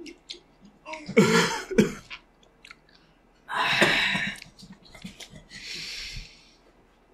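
A person coughs while chewing raw lemon. There are two loud coughs, about a second in and again near the middle, with small wet chewing clicks between them and a breathy exhale near the end.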